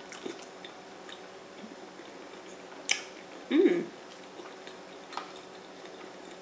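Eating sounds: a few sharp clicks and smacks as she eats and picks at boiled shrimp and corn, the loudest about three seconds in, followed by a short hummed "mm".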